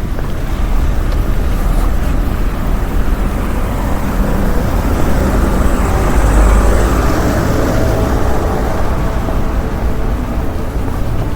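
Street traffic noise with a low, steady rumble, a vehicle passing that swells to its loudest about six to seven seconds in and then fades back.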